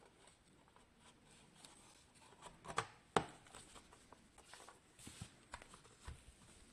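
Small clicks and taps from hands handling a mini PC's plastic case and internal parts during teardown or drive fitting, with two sharper clicks just before the middle and lighter ticks after.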